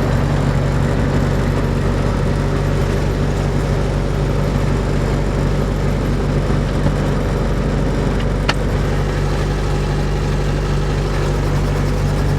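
Robinson R22 helicopter's four-cylinder Lycoming piston engine running steadily with the rotors turning during start-up. A single short click about eight and a half seconds in.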